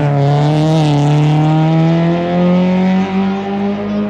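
Hillclimb race car engine pulling hard under acceleration, its pitch climbing steadily, with a brief dip about a second in like a quick upshift.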